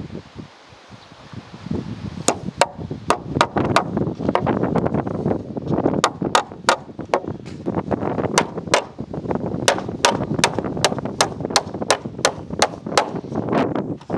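Hammer driving nails into wooden boards: a quick, steady run of sharp blows, about two to three a second, starting about two seconds in.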